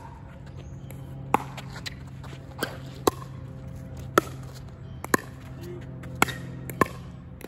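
Pickleball rally: a hard plastic pickleball struck back and forth by paddles and bouncing on the hard court, about seven sharp pocks at irregular intervals of roughly a second.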